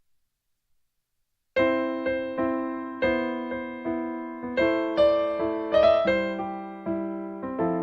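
Background music on electric piano: chords struck and left to decay, starting suddenly about a second and a half in after silence.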